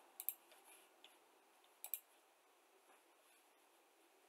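Near-silent room with a few short clicks: a quick pair about a quarter second in, a single one about a second in, and another quick pair near two seconds.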